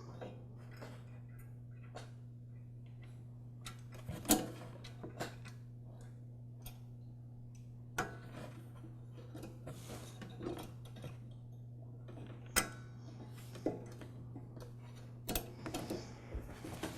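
Small metal parts clicking and tapping now and then as throttle and governor linkage rods are hooked back onto a lawn mower carburetor, over a steady low hum.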